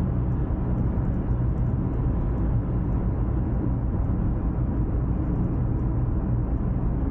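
Steady low road and engine noise inside a Ford car's cabin, cruising at motorway speed.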